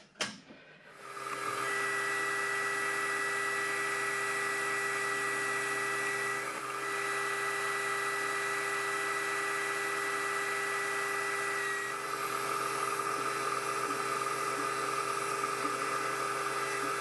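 Metal lathe running steadily with a high-pitched gear whine. The spindle spins up about a second in, the whine changes pitch partway through, and the machine winds down just after the end.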